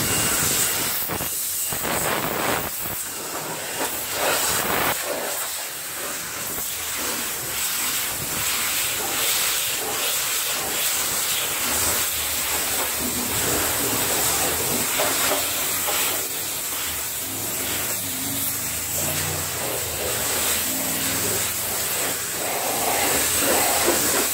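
Self-serve car wash pressure wand spraying a steady, hissing jet of soapy water onto a car's body panels.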